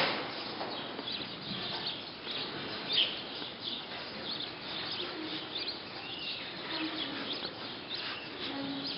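Dry, loose TMR feed being scraped and rustled by hand across concrete as the sample pile is split into quarters, with short scratchy scrapes throughout.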